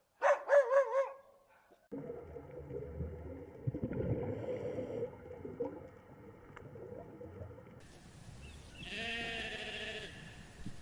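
Animal calls from separate clips: a short, loud call with a wavering pitch near the start, then a noisier stretch of rustling and small sounds, and a softer wavering call near the end.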